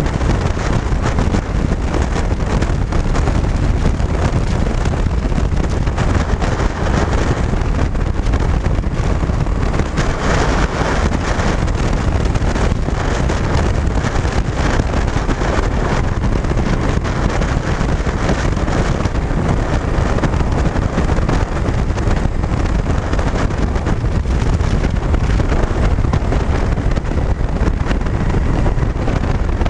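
Cruiser motorcycle riding steadily at road speed, heard mostly as a steady wind rush on the microphone over the running engine.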